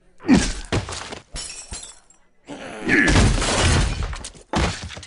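Fight sound effects of a beating: a string of heavy blows and smashes with breaking and shattering, and a long loud crash about halfway through.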